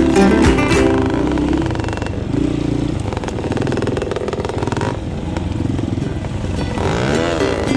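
A motorcycle engine running, its pitch swooping up and down near the end as it revs or passes.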